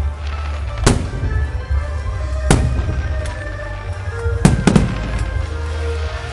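Aerial firework shells bursting overhead: single sharp bangs at uneven intervals, then three in quick succession about four and a half seconds in, over steady background music.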